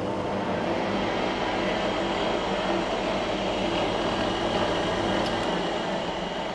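Pillar drill press's electric motor and belt drive running steadily at top speed: a continuous mechanical hum with hiss, started just before by its relay switch.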